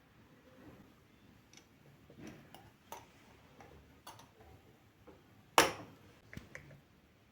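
Scattered light clicks and taps of kitchen handling, with one sharper, louder knock about five and a half seconds in.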